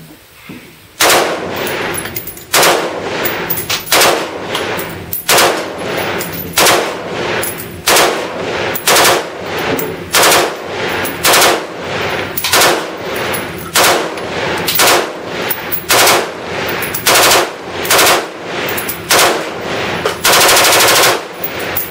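Scoped AR-style rifle firing a long string of shots at a steady pace, about one shot every two-thirds of a second, ending in a rapid burst of fire about a second long near the end.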